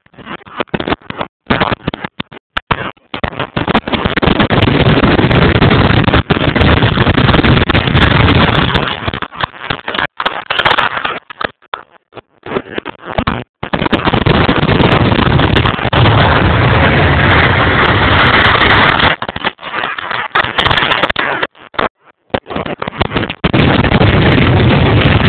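Jet engines of red aerobatic-team jet trainers running at high power on the runway for take-off. The sound is very loud, overloading the microphone into a harsh, distorted noise that keeps cutting out for split seconds.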